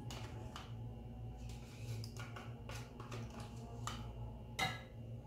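Metal spoon scraping yogurt out of a small plastic cup into a bowl: scattered soft scrapes and clicks, with a sharper tap about four and a half seconds in. A steady low hum runs underneath.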